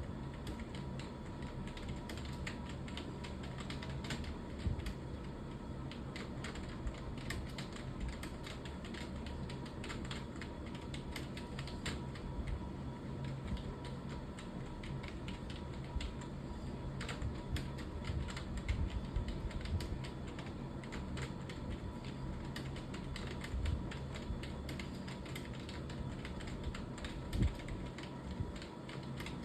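Typing on a computer keyboard: a continuous run of quick, irregular key clicks over a steady low hum.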